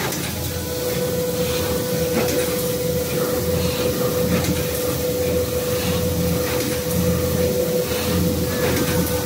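Thermoforming line and its inline scrap-film crusher with cyclone blower running: a steady high whine that sets in about half a second in, over a continuous low rumble, with faint clicks now and then.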